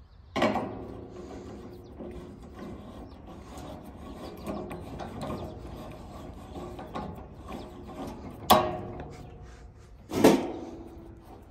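Swivel casters being screwed by hand into the steel legs of a griddle cart: a steady rattling and scraping of metal on metal, broken by three sharp metal knocks that ring on briefly, one about half a second in and two near the end.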